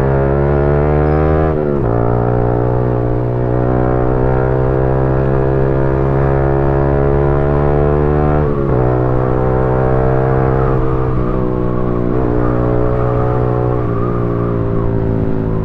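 A vehicle engine running steadily, its pitch dipping briefly a few times.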